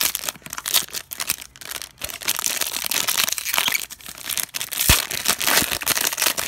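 Silver foil card-pack pouch crinkling and crackling loudly as hands work it close to the microphone and tear it open, in a dense run of irregular sharp crackles.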